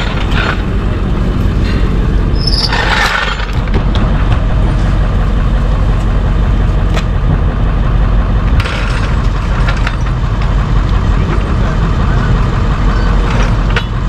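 Steady low rumble of an idling vehicle engine, with short hissing bursts about three seconds in and again near nine seconds.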